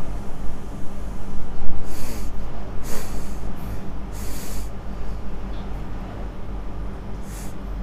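A person snorting and sniffing through a finger-pushed-up 'piggy' nose: about five short breathy snorts, the longest about four seconds in, over a steady low hum.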